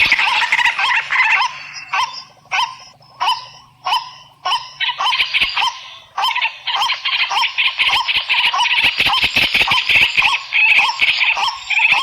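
Animal calls repeating rapidly, thinning to separate calls about every half second for a few seconds, then packing densely again.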